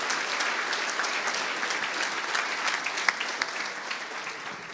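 Audience applauding in a hall, the clapping thinning and dying away near the end.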